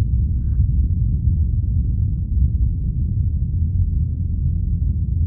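Deep, steady low rumble, the simulated sound of earthquake ground shaking, with a brief faint higher tone about half a second in.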